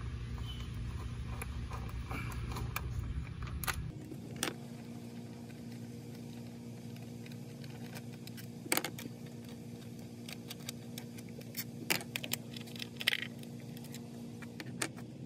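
Scattered small metallic clicks and clinks of a socket and bolts being handled while the ignition coil fasteners on a Honda CR-V engine are loosened by hand, over a steady low hum.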